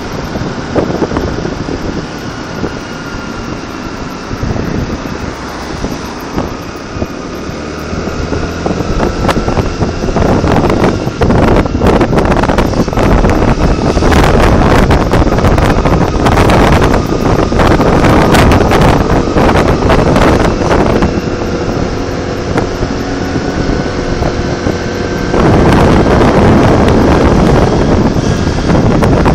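Wind buffeting hard on a phone's microphone while it moves along a road, with a vehicle's running noise beneath. The buffeting is lighter for the first several seconds, then grows louder and gustier.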